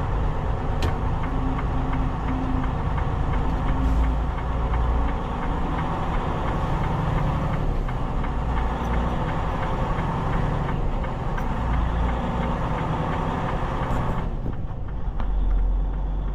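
Semi truck running down the highway, a steady engine and road rumble heard from inside the cab.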